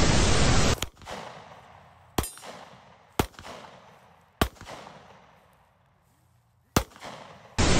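Shotgun firing: a loud, harsh burst about a second long at the start, then four sharp shots spread unevenly over the next several seconds, each cracking and fading quickly.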